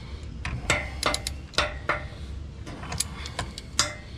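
Hand socket ratchet with an extension clicking in short, irregular runs while turning a bolt on a boat trailer's bunk bracket, with a few sharper metal clicks.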